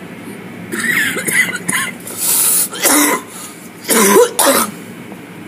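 A person coughing and clearing their throat in a string of loud, short bursts, over the steady rumble of car-wash machinery heard from inside the car.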